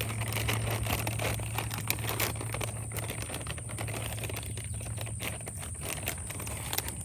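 Plastic packaging crinkling and rustling in many small, irregular crackles as an MRE main-course pouch and its flameless ration heater bag are handled.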